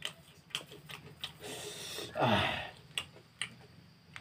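Crisp crunching and smacking clicks of someone chewing a mouthful of puffed rice (muri) with ghugni. About two seconds in there is a louder breathy rush that ends in a sound sliding down in pitch.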